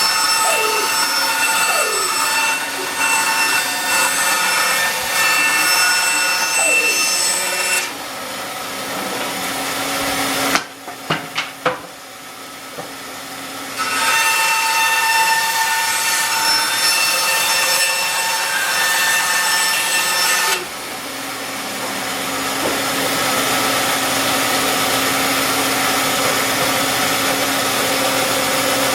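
Band saw running and cutting, in two loud stretches of sawing. Between them is a quieter spell with a few sharp knocks. Near the end the saw runs on more evenly.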